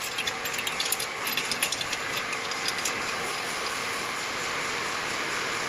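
Steady machine noise with a run of light clicks and rattles over the first three seconds, as parts are pushed and fitted tightly together.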